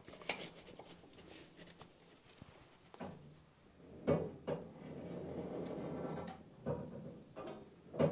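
Forge bellows worked by its wooden lever, with a sharp wooden knock at each stroke and a steady rush of air into the coal fire from about four seconds in. The fire is being blown to heat a knife blade for tempering.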